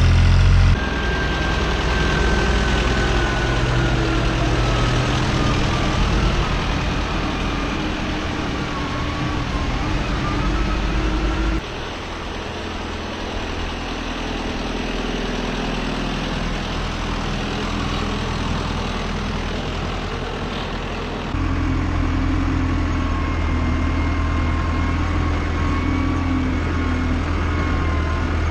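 Tractor engine running steadily, with a faint whine that drifts slowly in pitch. The sound changes abruptly about twelve seconds in and again about twenty-one seconds in, the low rumble dropping and then returning louder.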